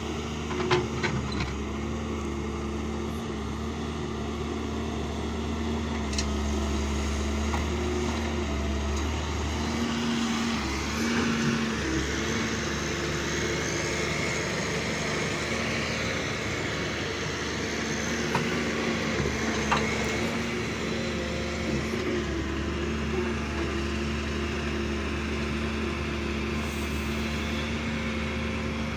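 Diesel engine of heavy earthmoving machinery running steadily under work. A few short knocks sound over it, and the low hum drops briefly a little before the middle.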